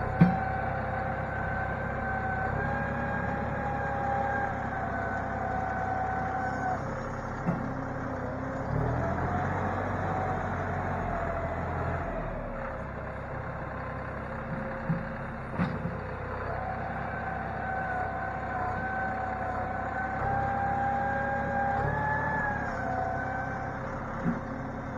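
Diesel utility tractor with a front-end loader running as it backs up, dragging and levelling loose clay with the bucket. A steady whine sits over the engine for the first several seconds, fades, and returns past the middle. A few short clanks come through along the way.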